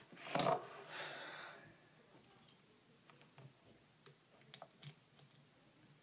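A brief breathy rustle about half a second in, fading out over the next second, then a few faint, scattered clicks and taps. No alarm tone sounds.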